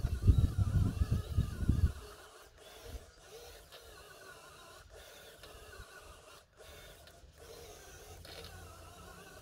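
A loud, uneven low rumble for the first two seconds. Then the faint, wavering whine of the Huina 573 RC truck's electric motor and gears, its pitch rising and falling as it drives on dirt.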